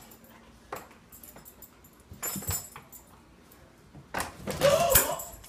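Light clicks and rattles, then a loud animal cry about four seconds in, lasting roughly a second with a pitch that rises and falls.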